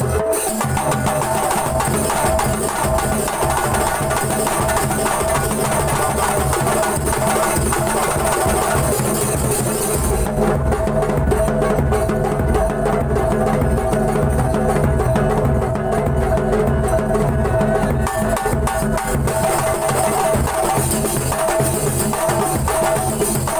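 Kuntulan percussion ensemble playing a dense, fast rhythm on rebana frame drums and large double-headed bass drums. Under the drumming runs a steady held tone. About ten seconds in, the sharper, higher strokes ease off for several seconds while the deep drum strokes carry on.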